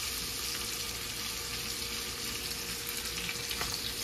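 Pounded chicken breasts frying in butter and a little oil in a non-stick skillet, searing on their second side after the flip: a steady sizzle with a few faint crackles.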